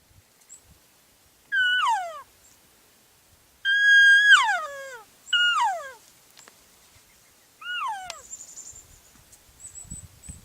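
Elk calling: four whistling calls, each a high held note that slides steeply down. The second is the longest and loudest.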